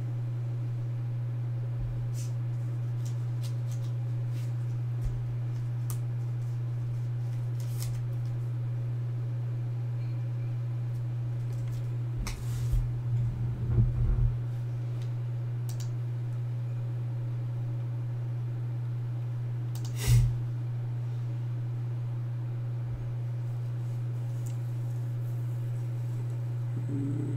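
A steady low electrical or fan hum, with a few faint clicks, a short patch of handling rustle and clatter about 12 to 14 seconds in, and one sharp knock about 20 seconds in.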